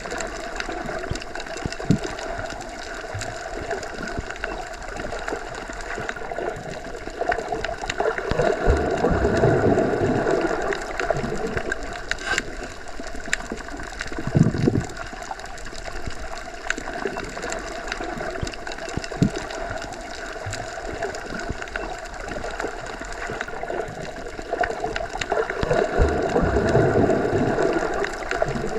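Underwater ambience heard through a hydrophone: a steady muffled water wash that swells twice, with scattered small clicks and pops.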